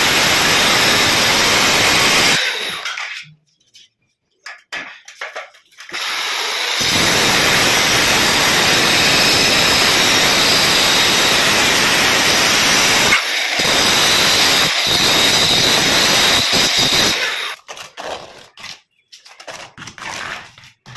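A power tool used in wall tiling, running loudly for about two and a half seconds, then again for about ten seconds with two brief dips, followed by scattered short knocks.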